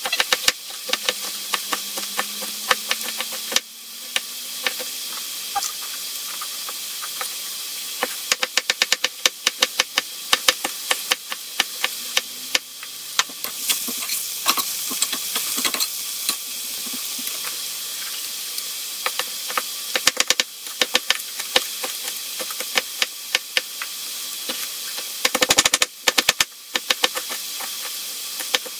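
A kitchen knife chopping cabbage on a cutting board, sharp strikes coming in quick runs, over the steady hiss of onion and carrot frying in a pan.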